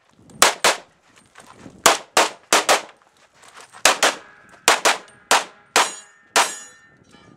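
A USPSA Open-division pistol fired rapidly: about fourteen shots, mostly in quick pairs of two, with short pauses between pairs as the shooter moves between positions.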